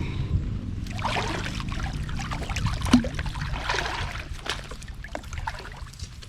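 Creek water splashing and trickling, with scattered small knocks and a steady low rumble underneath.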